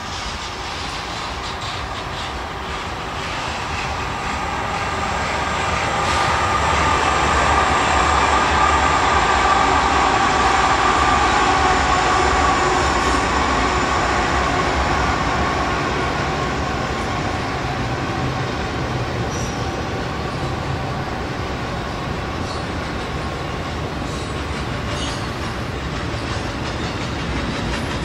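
Freight cars of two trains rolling by on adjacent tracks: a double-stack intermodal train overtaking a garbage train of loaded trash containers. Steady wheel-on-rail rumble and clatter grows louder about four to six seconds in as the stack cars come alongside, with a high steady wheel squeal through the middle that eases off later.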